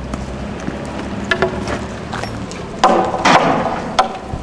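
Hammer blows on timber framing: a few sharp, irregularly spaced knocks, the loudest cluster about three seconds in.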